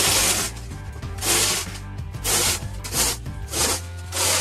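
A snow shovel scraping snow across the ice in repeated strokes, about one a second, with background music underneath.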